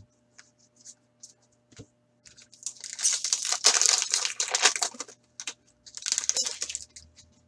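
Foil wrapper of a hockey card pack being torn open and crinkled by hand: a few light ticks, then a dense crackling spell of two to three seconds, a short pause, and a second, shorter spell of crinkling as the cards are pulled out.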